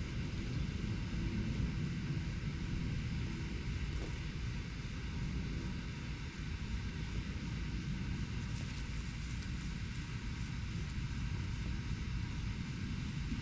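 Steady low rumble of distant engine noise, the background hum of city traffic, with no single event standing out.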